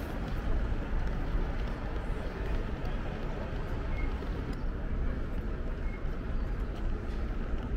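Steady outdoor street ambience: an even, low rumble of traffic.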